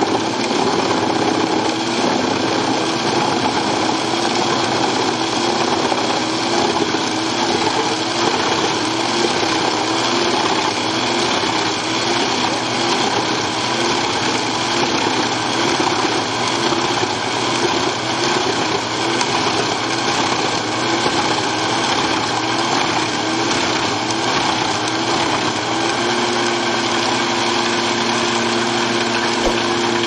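Eschlböck Biber 92 drum wood chipper running under load, chipping a log: a loud, dense, continuous machine din. A humming tone in it wavers, then holds steady near the end.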